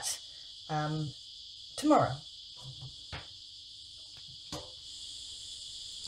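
Cicadas calling outside, a steady high-pitched drone heard through closed doors and windows.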